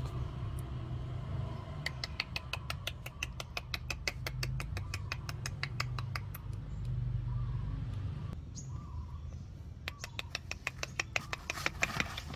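A fast, even run of sharp clicks, about seven a second, starting about two seconds in and stopping around eight seconds, then starting again near the end, over a steady low rumble.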